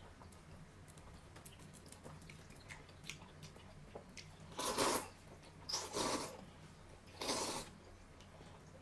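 A person slurping noodles from a bowl: three loud slurps in the second half, each about half a second long, with soft chewing and small mouth clicks between them.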